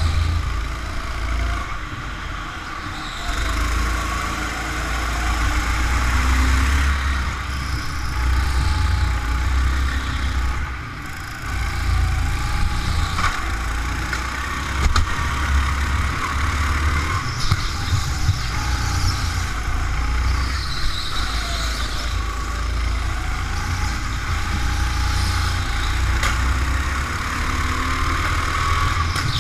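Go-kart engine running on the move, its pitch rising and falling as the kart speeds up and slows through the corners, over a heavy low rumble.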